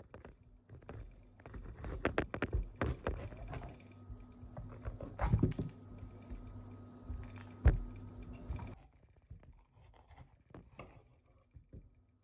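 Kitchen preparation sounds: scattered knocks and clatter of utensils and containers, with one sharp knock about two-thirds through that is the loudest. A steady low hum sits under them and stops suddenly about three-quarters through.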